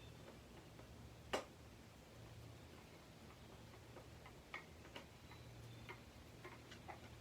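Near silence with a few faint, irregular clicks and taps of alarm-clock parts being handled, one sharper click about a second and a half in, over a low steady hum.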